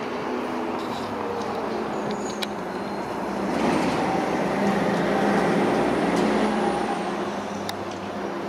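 Steady engine drone, louder through the middle few seconds, with a couple of sharp knocks.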